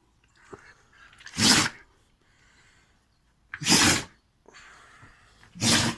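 A dog sneezing three times, about two seconds apart, each sneeze a short sharp burst. The owner wonders whether a midge is causing it.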